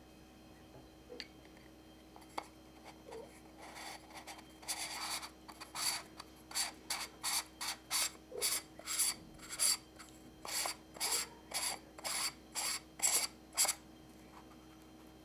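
Screw-in filter ring being threaded onto the front of a Sigma 10-18mm F2.8 lens: a run of short scraping rasps, about two a second, as each twist turns the threads.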